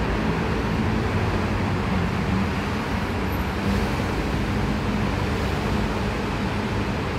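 Steady road-traffic noise: an even low rumble with hiss and no single distinct vehicle or event.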